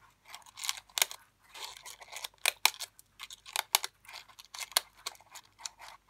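Small white-handled scissors snipping the edges of folded paper: a run of short, sharp snips at an uneven pace, about two a second.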